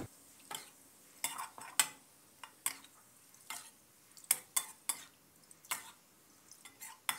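Metal spatula scraping and tapping against a steel wok in short, irregular strokes, scooping crisp fried garlic out of the oil into a wire-mesh strainer.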